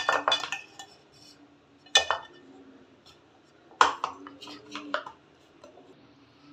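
Stainless-steel kitchen vessels knocking together: three sharp metallic clinks with a brief ring, about two seconds apart, followed by a quick run of lighter taps.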